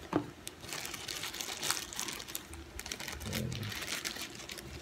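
Packaging crinkling and rustling as soft white wrapping is pulled and handled out of a cardboard camera box, with a steady run of small crackles throughout.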